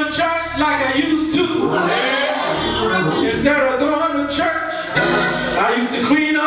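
A male preacher chanting his sermon in a sung tone into a handheld microphone.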